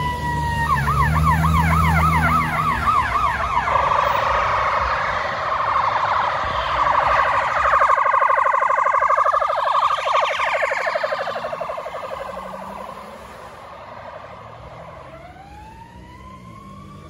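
Emergency vehicle siren switching from a wail to a fast yelp of about four sweeps a second, then several siren tones sweeping together as they pass and fade away. A new wail rises near the end.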